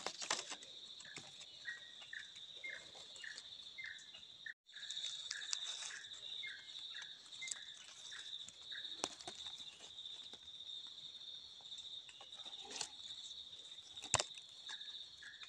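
Forest insects, crickets, keeping up a steady high chirring chorus, with a second, lower chirp repeating about twice a second through the first part. A few sharp clicks from handling break through later.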